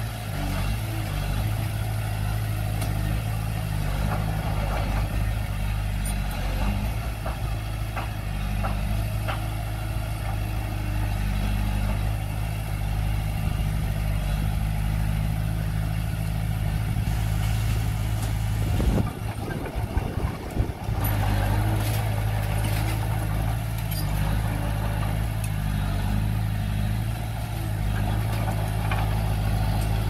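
Bulldozer's diesel engine running steadily, with a few light clicks. About two-thirds of the way through, the engine note drops away and wavers for a couple of seconds, then picks up again.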